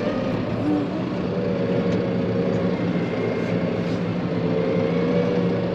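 Tractor engine running steadily while the tractor reverses with a double tank hitch.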